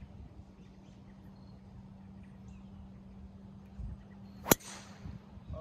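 A driver striking a golf ball off the tee: one sharp crack near the end, with a brief ringing tail, by far the loudest sound. The ball is struck a little off the toe of the clubface.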